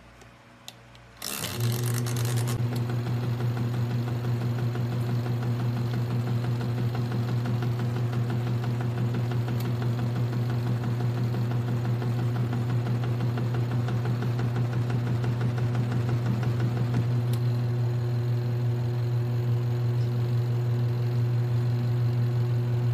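HOMEFUN 8 kg mini washing machine's motor starting about a second in and running with a steady, loud hum.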